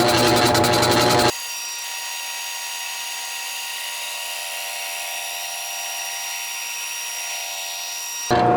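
Machine tool cutting metal, clearancing the tips of a 20B rotary engine rotor. The loud cutting noise stops abruptly about a second in and gives way to a quieter, thin, steady high-pitched whine. The loud cutting comes back abruptly near the end.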